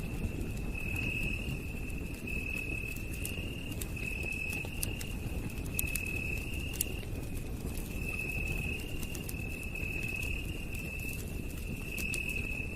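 Campfire crackling, with scattered sharp pops over a low rumble of the fire. Under it, night insects keep up a steady high-pitched trill that swells louder about once a second.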